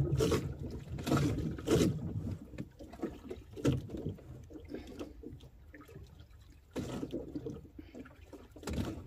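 Sea water lapping and sloshing against a small fishing boat's hull in irregular splashes, about six over several seconds, with low rumble in between.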